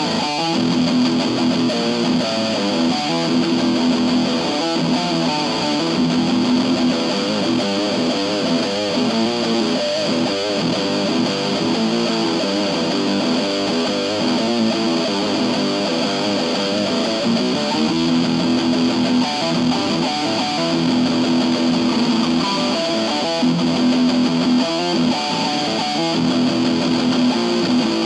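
Electric guitar, an IYV Thinline Telecaster, played through a Keeley compressor and Pigtronix Space Rip pedal into an Orange Crush 20 combo amp. The playing mixes held low notes with busier picked and strummed passages.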